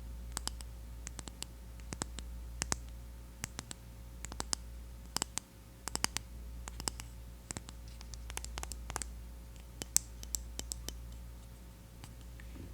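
Fingernails tapping and clicking on the plastic container of a mineral sunscreen powder: many soft, sharp clicks at an irregular pace, often in quick clusters of two or three.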